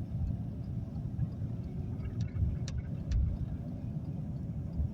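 Car driving on a snowy road in a blizzard: a steady low rumble of road and wind, with three sharp clicks about halfway through.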